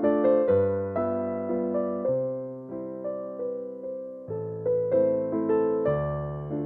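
Background piano music: single notes struck about twice a second over low notes that change every second or two. No knife chops are heard.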